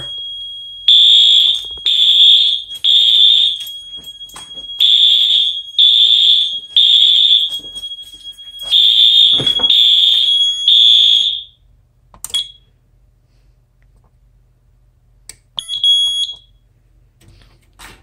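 Wheelock AS horn strobe sounding the temporal-three evacuation pattern: three half-second high-pitched blasts, a pause, then three more, with a thin steady tone between the blasts. The horn cuts off about eleven seconds in, and a short electronic beep follows near the end.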